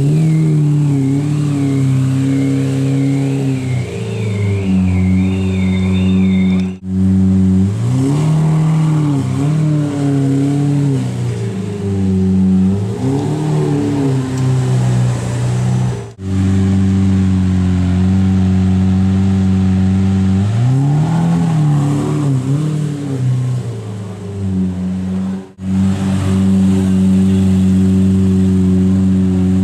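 Lamborghini Murciélago LP640's V12 running through a Tubi aftermarket exhaust, idling between repeated throttle blips that rise and fall in pitch. For the first several seconds a high warbling tone sounds in the background.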